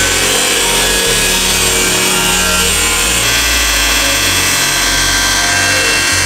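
Cordless angle grinder cutting into the rusty sheet-steel quarter panel of an FJ40 Land Cruiser body, running steadily under load as it throws sparks.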